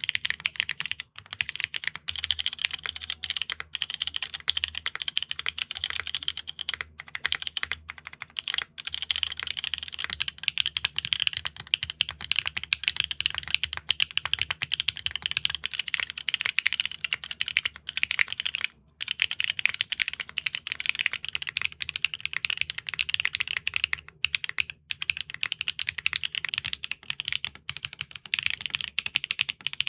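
Fast, continuous typing on mechanical keyboards fitted with thick reverse dye-sub PBT keycaps (KeyTok x Matrix Plato), keystrokes clacking in quick succession. It breaks off briefly a few times, around 1, 7, 9, 19 and 25 seconds in.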